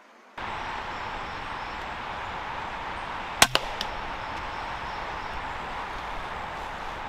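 Weihrauch HW100 .22 sub-12 ft/lb PCP air rifle firing once about three and a half seconds in: a sharp crack, then a second, fainter crack a fraction of a second later and a small tick. A steady outdoor hiss runs underneath.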